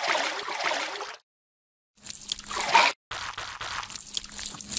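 Wet sloshing and trickling water sound effects in short bursts, cut apart by moments of dead silence.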